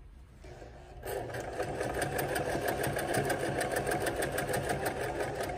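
Electric sewing machine starting up about a second in, then running steadily as it stitches a seam, with a fast, even ticking of the needle.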